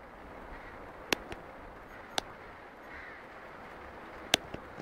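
Steady background hiss broken by several sharp clicks, spread irregularly, with a faint bird call about three seconds in. No engine is running.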